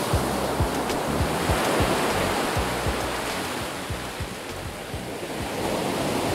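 Surf on a sandy beach: a steady hiss of breaking waves and foam washing up the sand. It eases off about four seconds in and builds again near the end as the next wave comes in, with frequent low thuds underneath.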